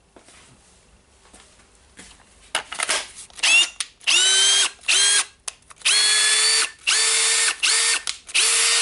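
Makita DDF483 18V brushless drill-driver test-run after a new gear assembly is fitted, its bare spindle spinning with no chuck. It is triggered in a few short blips, then about six bursts of under a second each. Each burst spins up with a quick rising whine and then runs steady, showing that the repaired gearbox turns.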